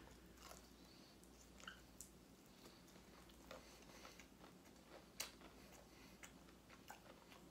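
Faint chewing of fried chicken: soft clicks of the mouth about once a second, barely above room tone.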